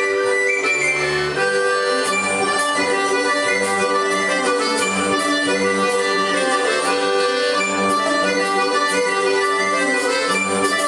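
Folk band playing a lively traditional tune, led by a button accordion with a hurdy-gurdy and a wind instrument, over a steady pulsing bass.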